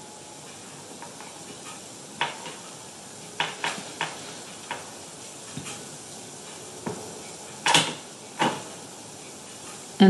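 Paintbrush working acrylic paint onto a pane of glass: scattered light taps and clicks of the brush on the glass, the sharpest about three-quarters of the way through, over a steady low hiss.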